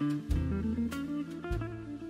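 Background instrumental music: a jazzy guitar tune with bass and drums.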